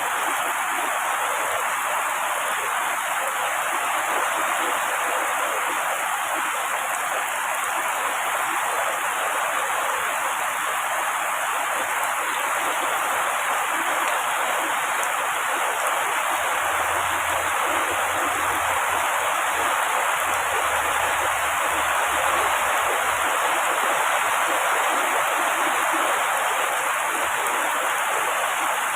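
Heavy rain falling steadily on tree foliage, an even hiss with no breaks. A faint low rumble comes in for several seconds past the middle.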